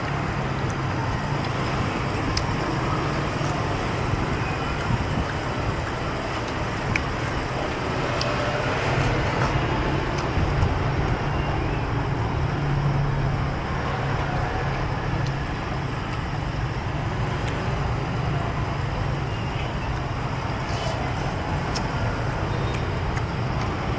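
Steady street traffic noise with a low engine hum underneath. A few light clicks of the metal spoon and chopsticks against the soup bowl come through here and there.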